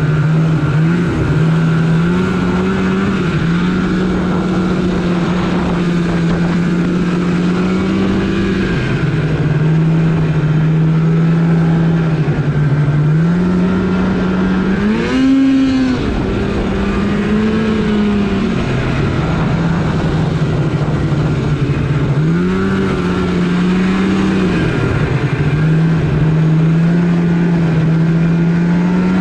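Polaris RMK snowmobile engine running under way, its pitch stepping up and down every few seconds with the throttle, with a short sharp rise and fall in pitch about halfway through.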